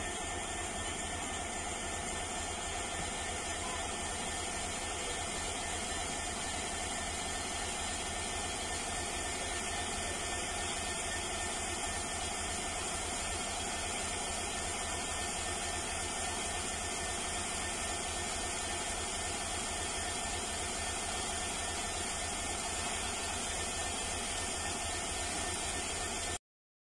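WDG4D diesel locomotive's two-stroke EMD 16-710 engine idling steadily after start-up, a constant low hum under an even hiss, cutting off suddenly near the end.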